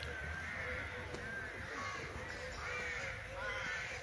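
Crows cawing, a string of short calls one after another.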